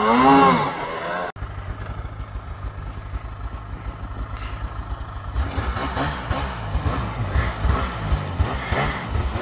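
Arctic Cat Alpha One M8000's two-stroke twin-cylinder engine revving, its pitch swinging up and down as the sled rides through deep snow. After a sudden cut about a second in, snowmobile engines run slowly near idle with a low, steady rumble that grows rougher and louder about halfway through.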